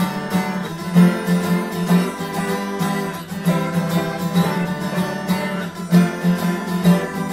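Music led by a plucked string instrument, with a steady pulse.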